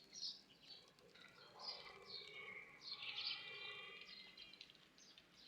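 Birds chirping: a run of short, falling chirps, busiest about two to four seconds in.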